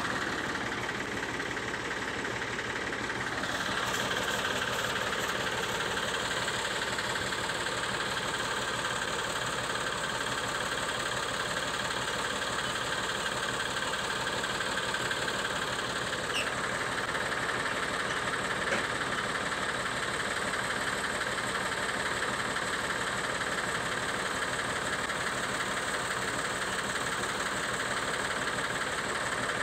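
Diesel engine running steadily at idle.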